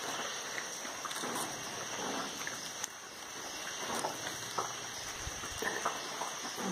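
Light rain outdoors: a steady hiss with faint, scattered drips and ticks.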